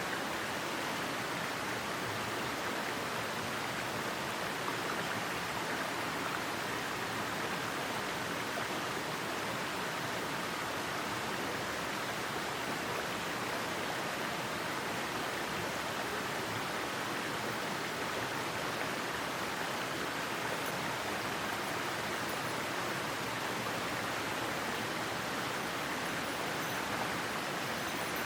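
Mountain headwater stream flowing in a steady, even rush of water.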